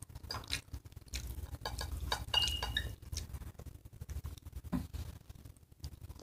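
Fork clinking and scraping against a plate while spaghetti is twirled, a series of irregular light taps with one brief ringing clink about two and a half seconds in.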